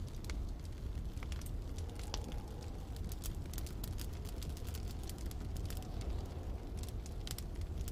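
Wood fire crackling with many scattered sharp pops over a steady low rumble of snowstorm wind.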